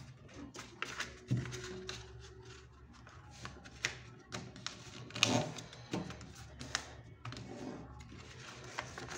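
A sheet of paper being folded and creased by hand on a tabletop: irregular crinkling and rustling with sharp little crackles and taps as the folds are pressed down.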